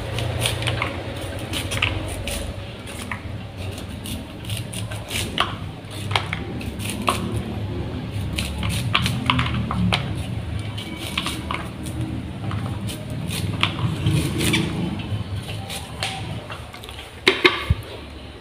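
A knife cutting and scraping kernels off a cob of sweet corn, the kernels pattering into a plastic bowl in irregular short cuts and scrapes, over a low steady hum. A couple of sharper knocks come near the end.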